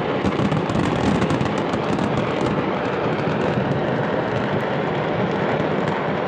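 Dense, continuous crackling and popping of masses of fireworks going off in a burning fireworks market, over the steady rumble of the moving car it is heard from. The crackle is thickest in the first couple of seconds.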